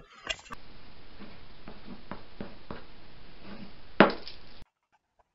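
Hand-drawn strokes on a paper pad resting on a wooden table: soft scratches and taps over a steady hiss, with one louder scrape about four seconds in, then the sound cuts off suddenly.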